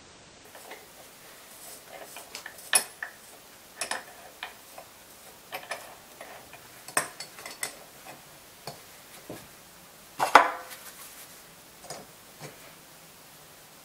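Scattered metallic clinks and clicks of an open spanner and a socket wrench on two nuts locked together on a two-stroke motorcycle cylinder stud, as the stud is worked loose. The loudest clank, with a short ring, comes about ten seconds in.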